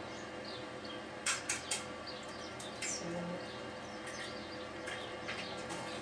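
A hen's egg being cracked into a plastic jug: three sharp clicks close together about a second and a half in, over a faint steady hum.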